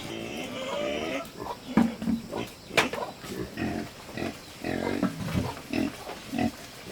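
Pigs grunting in many short, quick bursts, coming about two a second in the second half, with one sharp click about three seconds in.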